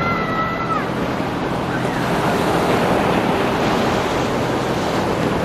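Ocean surf breaking on a rocky beach and washing up the sand: a steady rush of waves that swells a little midway.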